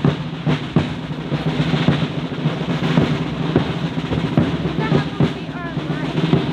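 Drum-heavy music: rapid snare and bass drum strikes with a rolling beat.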